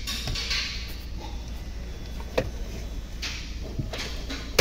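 Loose car dashboard plastics being handled during removal: scattered light clicks and brief rustles, over a steady low hum.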